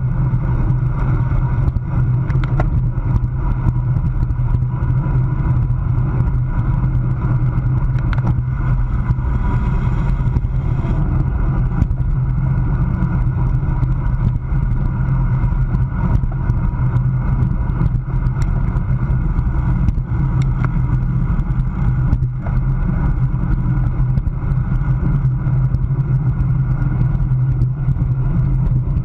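Steady low wind rumble on a road bike's handlebar-mounted camera microphone, riding at about 25 mph, with scattered faint clicks.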